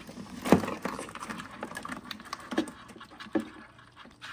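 Live blue crabs scrabbling and clicking against the inside of a plastic cooler, with a sharper knock about half a second in and a couple more later.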